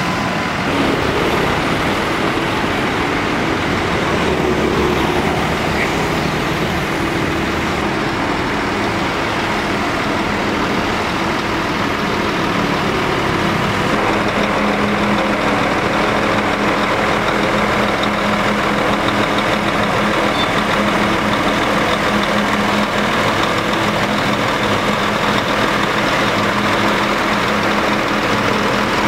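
Scania K410iB coach's rear-mounted diesel engine idling with a steady hum, with street traffic passing. The engine tone comes through more evenly from about halfway through.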